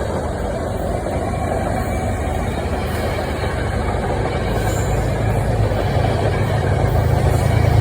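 Metro-North commuter train running, a steady rumble with a low hum that grows stronger near the end as the sound slowly gets louder.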